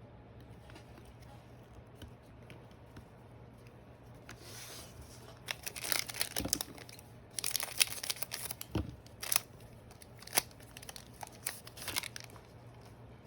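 A trading card pack's wrapper being torn open and crinkled, a run of crackly tearing and crinkling noises from about four seconds in until about twelve seconds in.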